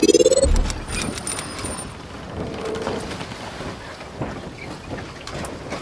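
Logo-intro sound effects: a rising whoosh that ends in a low boom about half a second in, followed by a crackling, rain-like hiss with many small clicks.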